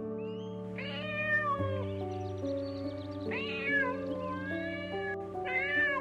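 Domestic cat meowing three times, drawn-out calls about two seconds apart, over background music with steady held notes.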